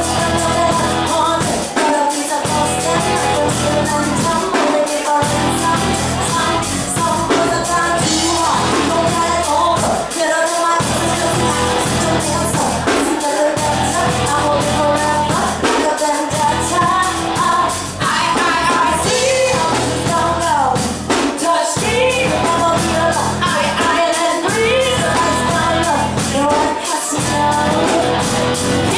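Live rock band playing a song: female vocals over drum kit, electric bass and guitar. The bass end drops out briefly every two to three seconds.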